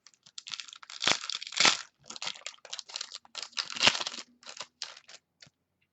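Trading-card pack wrapper being torn open and crinkled in the hands, a quick run of rustling crackles with a few louder ones about one, one and a half and four seconds in.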